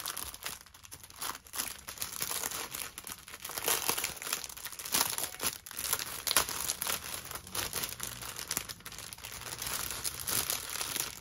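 Clear plastic bag packed with small zip packets of diamond-painting drills crinkling and rustling in irregular bursts as it is handled and its plastic is pulled open.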